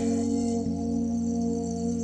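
Background music of long, steady held tones with no beat.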